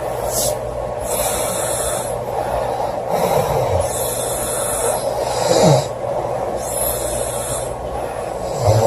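A girl snoring loudly in her sleep, with slow breaths every two to three seconds. Each breath has a hiss, and low snores come about three and a half seconds in, again at about five and a half seconds with a falling pitch, and near the end. A steady background noise runs underneath.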